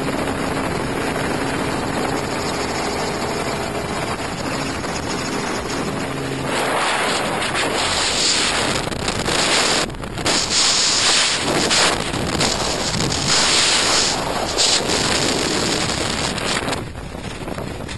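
Freefall wind rushing and buffeting over a skydiver's camera microphone. It grows louder and gustier about six seconds in and eases near the end. A faint steady hum from the helicopter sits under the wind for the first six seconds.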